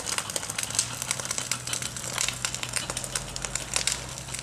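Brush and grass fire crackling and popping in irregular sharp snaps, with a faint steady low hum underneath from about a second in.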